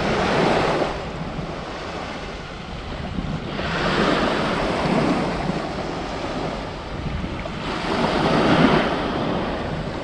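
Sea surf washing on the shore with wind on the microphone; the noise swells and eases three times.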